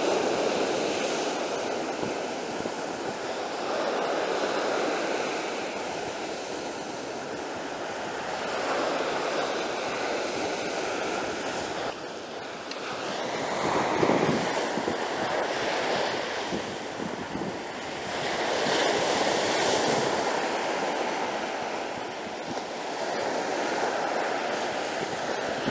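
Surf breaking on a sandy shore, the wash swelling and fading every few seconds, with wind buffeting the microphone.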